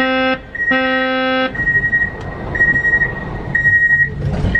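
Škoda Varsovia metro train's door-closing warning: a low buzzing tone sounds twice in the first second and a half, over a high beep that repeats about once a second while the doors close. A thump comes near the end.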